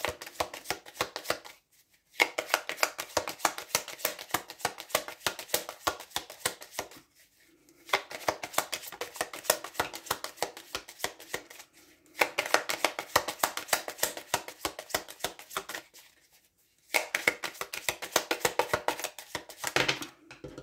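A deck of oracle cards shuffled by hand, a fast run of crisp card flicks. It comes in several bursts of a few seconds each, with short pauses between them.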